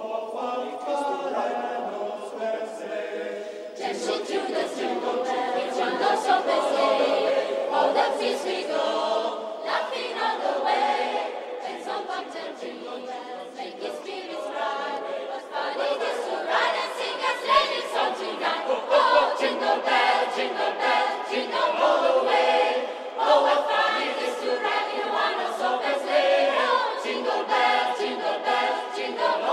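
A small chorus of high voices singing a cappella in several parts, with no instruments.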